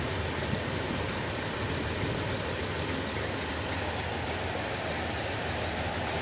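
Steady diesel engine rumble of trains at a station platform, even and unchanging.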